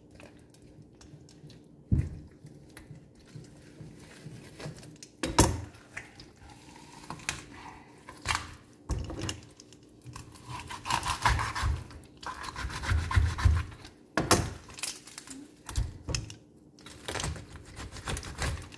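A large kitchen knife cutting up a raw whole chicken on a plastic cutting board: several sharp knocks as the blade hits the board, the loudest about five seconds in, with softer wet slicing and scraping of skin and meat in between.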